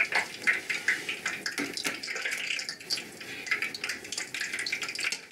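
Hot oil sizzling and crackling steadily around a test piece of vegetable: the oil is hot enough for deep-frying.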